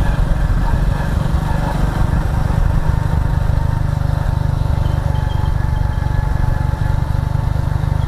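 Motorcycle engine running steadily as the bike rides along, a loud, even low rumble.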